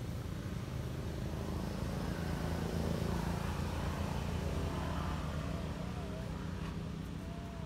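A motor vehicle's engine running steadily as a low hum, swelling around the middle and easing off toward the end, with a few faint, high, wavering calls in the last couple of seconds.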